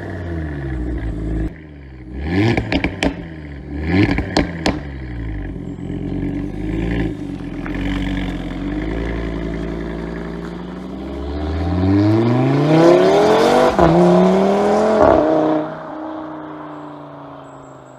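Audi RS3's turbocharged 2.5-litre five-cylinder revving through its stock exhaust with the exhaust valve open. Quick blips with sharp pops and crackles come about two to five seconds in, then a long rev climbs high and drops off sharply, with the engine note dying away near the end.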